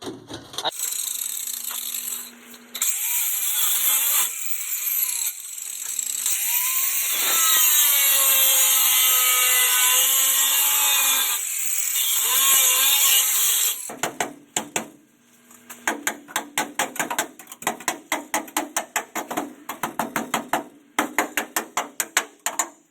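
Power tool cutting rusted sheet metal, a loud high-pitched screech with a whine that drops and rises as the cut loads it, for about the first thirteen seconds. Then a quick run of sharp metallic knocks, about three a second.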